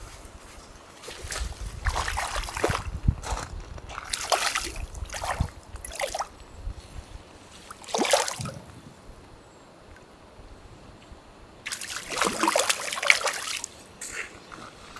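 Tiger trout thrashing at the surface of a pond, splashing in several short goes a second or two apart, with a longer spell of splashing near the end.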